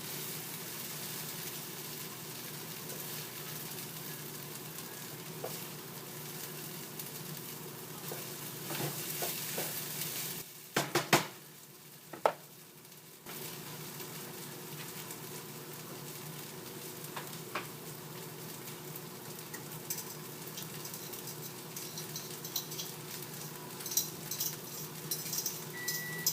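Food sizzling and frying in a skillet while it is stirred. Around the middle the sizzle drops away briefly and a couple of sharp clinks of a utensil or pan sound. A microwave starts beeping right at the end.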